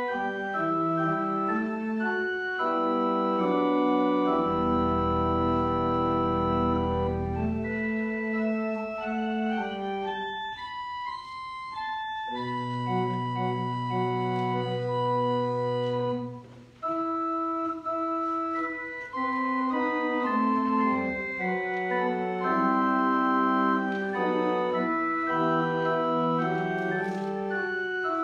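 Organ playing a church prelude in slow, sustained chords over long held bass notes, with a short break about two-thirds of the way through.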